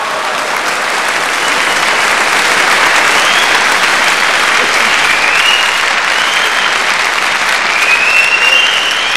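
Theatre audience applauding, the clapping swelling over the first couple of seconds and then holding steady.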